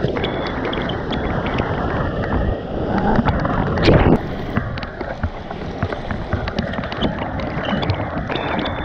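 Water rushing and splashing against a surfboard as it moves through a wave, with wind buffeting the microphone and many small clicks of spray. A brief loud burst about four seconds in.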